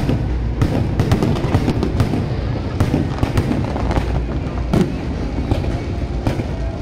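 Aerial fireworks bursting in quick succession: a continuous low rumble of explosions with many sharp bangs and crackles on top.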